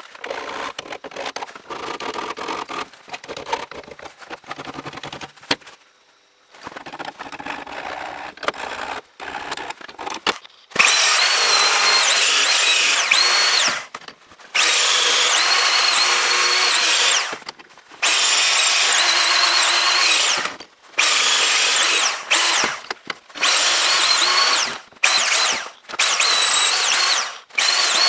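Hand file scraping in strokes across a steel hammer head for about ten seconds. Then an angle grinder runs against the steel in repeated bursts of a few seconds each, its high whine wavering as it cuts.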